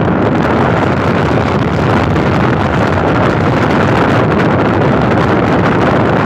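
Loud, steady wind rush buffeting the microphone while riding on a moving motorcycle.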